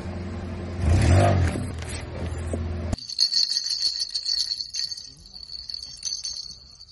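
A low, pitched hum swells about a second in and cuts off suddenly after about three seconds. Then comes a bright, high jingling with small clicks: the small bells inside a plastic toy spinner's perforated balls, rattling as it is handled and set down on asphalt.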